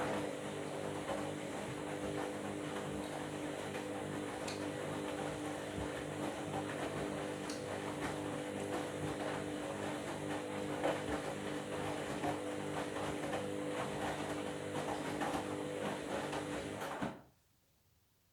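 Washing machine running: a steady motor hum with many small clicks and knocks. It stops abruptly about seventeen seconds in.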